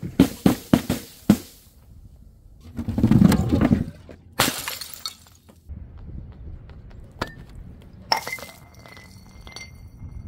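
Glass bottles being smashed: a quick run of sharp clinks, a heavier crash about three seconds in and a loud shatter near the middle, then scattered tinkles of glass. Near the end a piece of glass is struck and rings with a clear tone.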